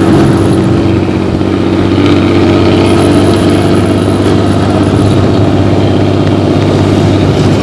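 Diesel engine of a Luragung intercity bus running steadily and loudly through its 'ngorok' (snoring) exhaust, a deep, even drone.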